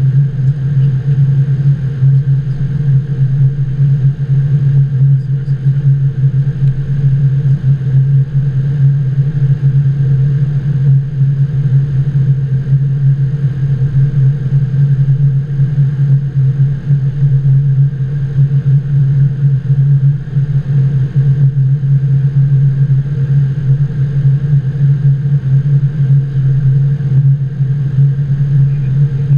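Steady flight-deck noise inside a Boeing 777-200 on approach: a constant loud low hum with fainter steady tones above it, unchanging throughout.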